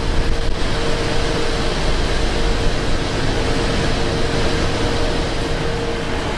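Steady engine and road noise inside a moving tour coach, with a faint steady whine running through it.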